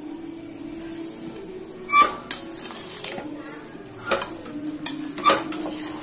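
A metal spoon stirs and fluffs cooked rice in a pressure cooker, knocking and clinking against the pot's rim about half a dozen times in the second half.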